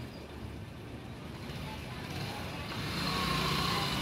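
Road vehicle passing: a steady low rumble and hiss that grows from about halfway through and is loudest near the end.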